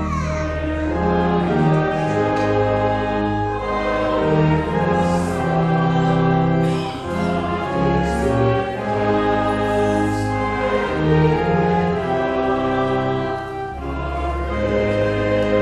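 A hymn sung by voices over sustained chords with a low held bass, the chords changing every second or two.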